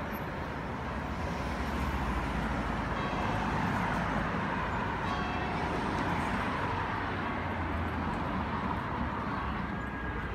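City street traffic noise: cars passing in a steady, unbroken wash of sound.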